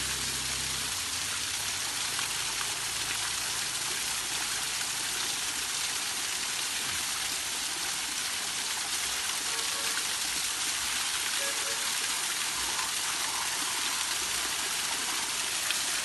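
Small waterfall pouring down a rock face and splashing onto stone and a person standing under it: a steady rush of falling water.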